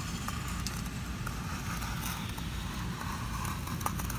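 Utility knife slicing through a foil-faced butyl sound-deadening mat, a faint scratchy cutting sound with a few light clicks, over a steady low background rumble.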